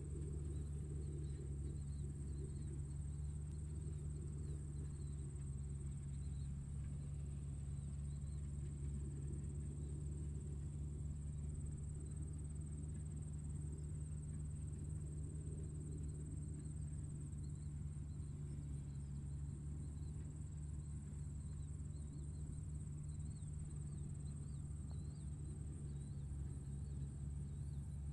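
Tractor engine running steadily, a low even drone with no change in speed. A constant high thin whine sits above it, with faint scattered chirps.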